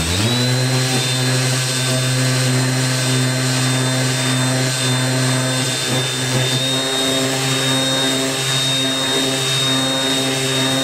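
Milwaukee M12 Fuel orbital detail sander's brushless motor running on its lowest speed (up to 8,000 orbits per minute), its 80-grit sheet pressed down on painted plywood and sanding off the paint. A steady motor hum with a thin high whine, rising in pitch as it comes up to speed at the start and cutting off near the end.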